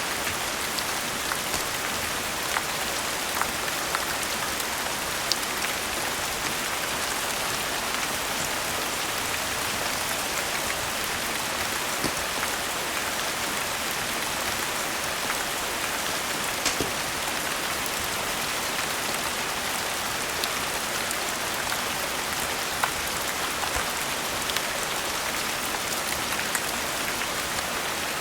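Steady rain falling, a dense even hiss with scattered sharp clicks and pops through it.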